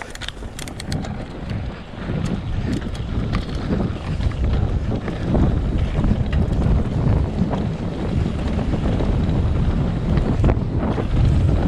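Heavy wind buffeting the microphone, a dense rushing noise that builds over the first couple of seconds and then holds, with a few brief clicks right at the start.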